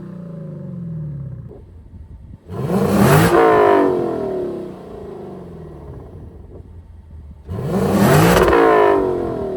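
Lexus LC 500's 5.0-litre V8, fitted with a Power Craft mid-pipe exhaust, revved sharply twice about five seconds apart. Each time the pitch falls back to a lower steady run.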